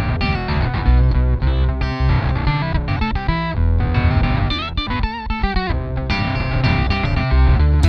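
Electric guitar played through a Stomp Audio Labs Octopus analog monophonic octave pedal, a strong, full-bodied octave-down bass doubling the notes. The octave-up is slightly sharp, giving ring-modulator-like chord sounds, with some wavering, bent notes a little past halfway.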